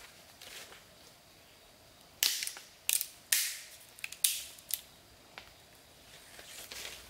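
A slender green pole cracking and splintering as it is bent over and broken by hand: a run of about five sharp cracks over two and a half seconds, from about two seconds in.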